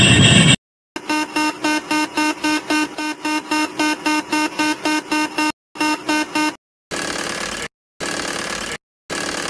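Boeing 747-8 cockpit aural alerts in sequence. The stall warning buzz stops just after the start. About a second in, the master caution alert begins: a repeating beeping tone, about four beeps a second, that stops at about six and a half seconds. Then the stick shaker sounds in bursts of about a second, roughly once a second, warning of an approaching stall.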